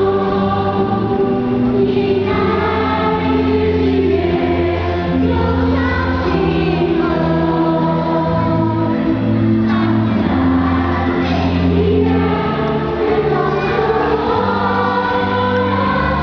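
A choir singing a song in long held notes that change pitch every second or two, over a steady low accompaniment.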